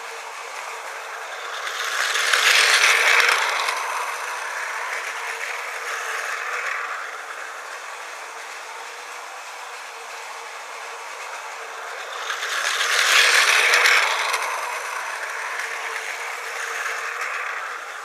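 Battery-powered Tomy Plarail toy train's small geared motor whirring as it runs along plastic track. It swells loud twice as the train passes close, about ten seconds apart, each time followed by a smaller rise and a fade.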